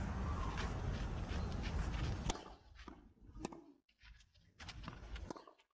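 Outdoor tennis court ambience: a steady background hiss that cuts off abruptly a little over two seconds in. After it, quieter air with a few scattered sharp taps.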